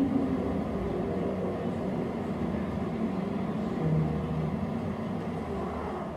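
Steady low rumble of a car driving along a road, from a video installation's soundtrack playing in a gallery.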